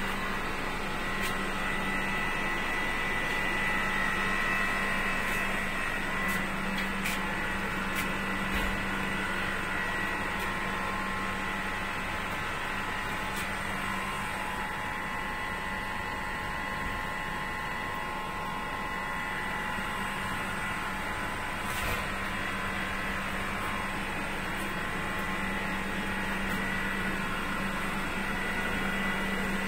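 Steady machine hum with a constant higher whine over it, unbroken throughout, with a few faint clicks.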